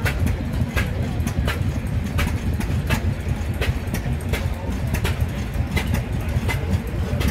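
Footsteps on asphalt, a short sharp step about every 0.7 s, over a steady low rumble.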